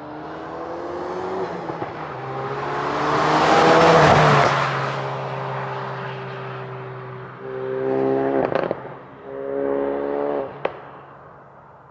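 2017 Ford Focus RS's 2.3-litre turbocharged EcoBoost four-cylinder revved while standing: one long rev that climbs to a peak about four seconds in and falls back, then two short blips of the throttle, each ending in a sharp crack.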